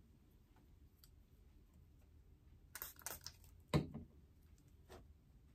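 A few light clicks and taps of small objects being handled, clustered around three seconds in, with a sharper knock just before four seconds and a faint tap near five.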